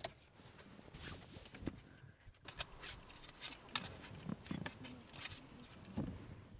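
Faint, scattered clicks and rustles of a CD being handled.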